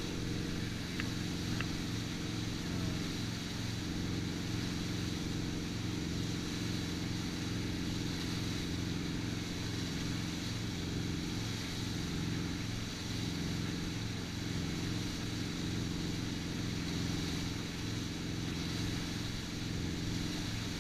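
MasterCraft wake boat's inboard engine running steadily under way at surfing speed, with a constant rush of churning water from the wake.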